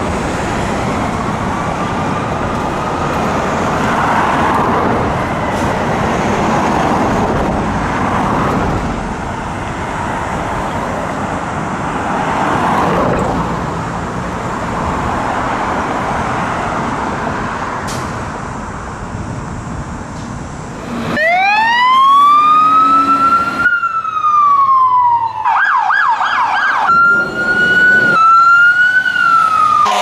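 Fire truck siren sounding through traffic noise, wailing faintly up and down. About 21 seconds in, a much louder siren starts up close: it rises to a high wail, falls, then switches to a rapid yelp.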